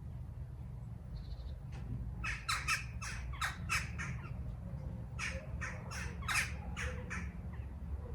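A crow cawing in two rapid runs of short harsh calls, about six then about five, over a steady low rumble.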